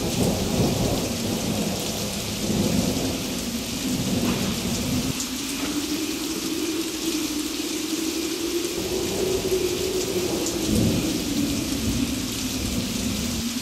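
Steady rain falling, with thunder rumbling that swells several times, loudest near the start and again about eleven seconds in.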